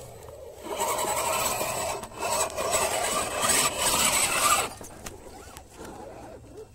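Scale RC crawler's small electric motor and gearbox whining under load as the truck climbs over rock, with its tyres scraping on stone. It runs from about a second in to about four and a half seconds, with a short dip near two seconds, then drops to a faint background.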